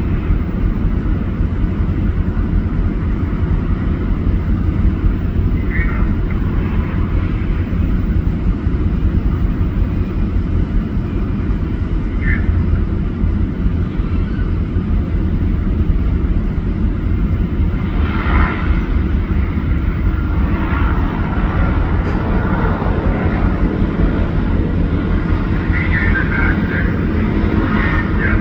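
Seaplane's propeller engine running with a steady, loud low drone.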